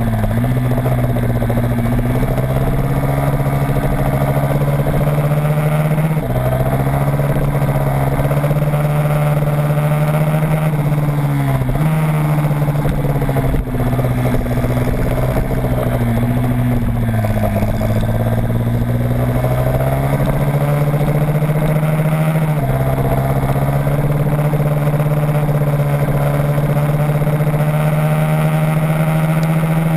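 Motorcycle engine running hard, heard from on board during track riding, with wind rush. The engine note holds steady for stretches, then sags and climbs back several times as the rider rolls off and back on the throttle through corners.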